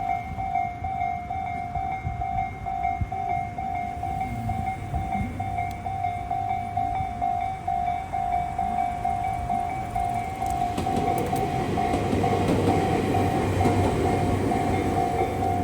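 Japanese level-crossing alarm sounding its repeating electronic 'kan-kan' bell, about two rings a second. From about ten seconds in, a Tobu Kameido Line train runs through the crossing, its rumble growing louder.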